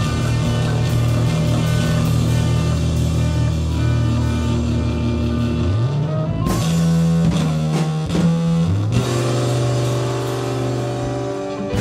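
Live rock band playing: electric guitar, bass guitar and drum kit. A held low note slides up in pitch about six seconds in, followed by a run of sharp hits before the band settles on a new chord.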